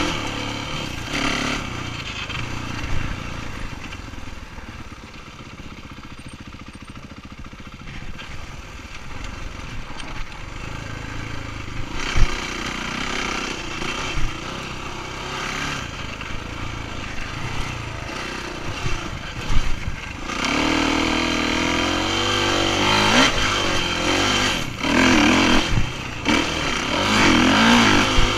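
Dirt bike engine being ridden on a trail. The throttle eases off in the first part, then the engine revs harder from about two-thirds of the way in, its pitch rising and falling with the throttle. A few sharp knocks come through in the middle.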